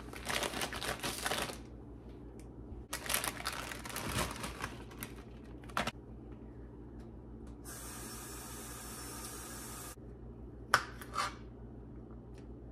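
Plastic produce bag crinkling as broccoli florets are pulled out into a colander, then a few seconds of water running steadily from a tap, cutting off abruptly, followed by a sharp knock on the counter and a smaller one just after.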